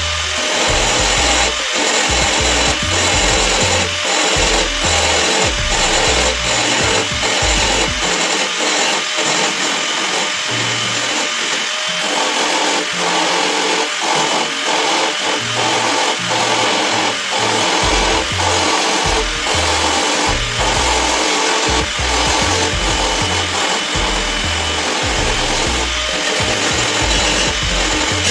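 Electric power tool, likely a grinder or sander, running continuously against sheet-metal car body panel during rust-repair bodywork, with a steady motor whine over a loud abrasive hiss.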